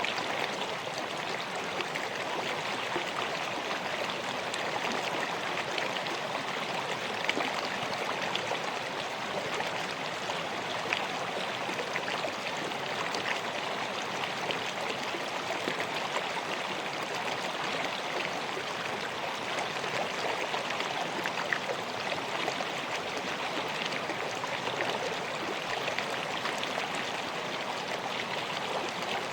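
River water flowing steadily over stones, a constant rushing babble with small splashes and trickles scattered through it.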